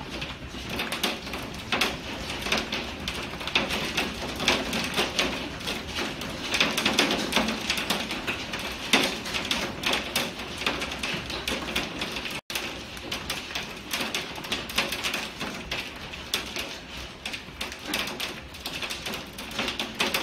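Hailstones pelting a window pane and the yard beyond: a dense, irregular rattle of sharp clicks and taps over a steady hiss of falling hail and rain.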